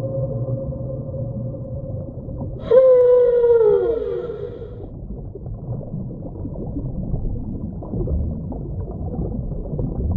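Whale calls. A long held tone fades away around four and a half seconds in. Under it, a second call starts sharply about three seconds in and slides down in pitch over about a second and a half, and after that only a low, steady noisy background remains.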